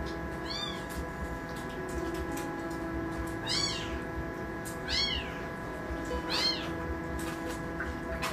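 Tiny kitten mewing: four short, high-pitched cries, each rising then falling in pitch, spaced a second or more apart.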